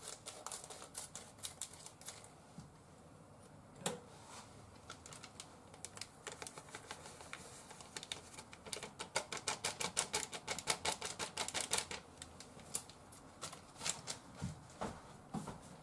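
Scissors snipping open a small plastic packet of flour mix, then the packet crinkling as the flour is shaken out into a stainless steel bowl. The sound is a string of small sharp clicks and crackles, which turns into a fast, dense run of ticks about nine to twelve seconds in.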